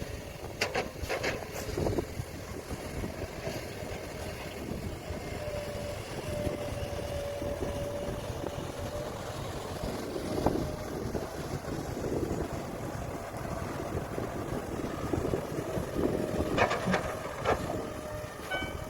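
Heavy diesel earthmoving machinery running under load: a steady engine rumble with a whine that comes and goes, and sharp clanks of rock or steel a few times, bunched near the start and again near the end.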